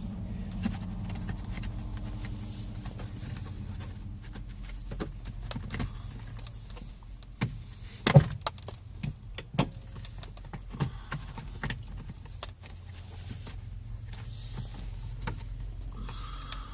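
Scattered clicks and knocks of plastic steering-column trim being worked loose by hand, the loudest a sharp click about eight seconds in, over a steady low hum.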